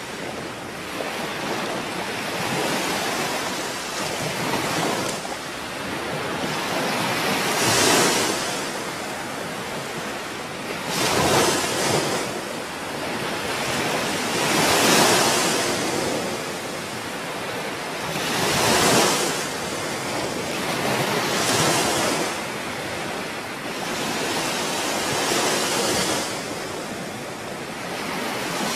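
Waves washing onto a shore, a steady rush of surf that swells and falls back every three to four seconds.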